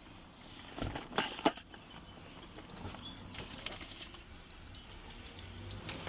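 Handling noise on a body-worn camera: footsteps and clothing rubbing against it, with a few sharp knocks between one and one and a half seconds in, then light scattered ticks.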